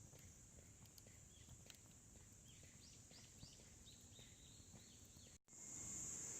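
Faint outdoor ambience: a steady high-pitched insect chorus, with a bird calling a quick run of down-slurred notes about three seconds in. The sound cuts out for an instant near the end, then the insect chorus comes back louder.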